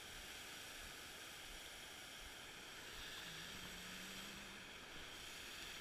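Steady, muffled rush of water pouring over a low creek weir, heard faintly through a GoPro's waterproof housing.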